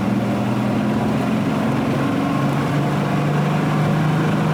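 Volvo 164's B30 straight-six engine running under way, heard from inside the car. The engine note drops in pitch about halfway through and then holds steady.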